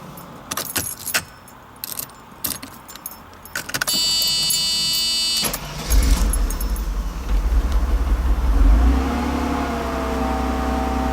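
1991 Mercedes-Benz 300SL's straight-six being started with difficulty. First come clicks and rattles of the key, then a steady whine for about a second and a half. Near the halfway point the engine catches, runs up briefly, and settles into a steady run.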